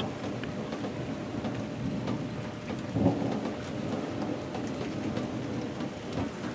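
Thunderstorm: thunder rumbling with rain, a continuous low rumble with one sudden louder burst about three seconds in.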